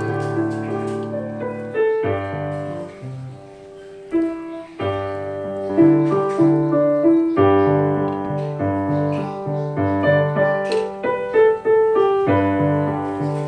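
Background music: a piano playing a gentle tune with chords changing every second or so.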